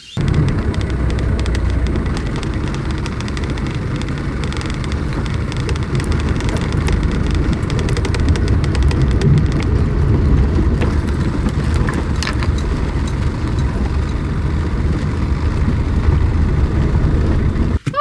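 A 1995 Toyota Hilux driving: a steady, loud rumble of engine and tyres with many small knocks and rattles throughout.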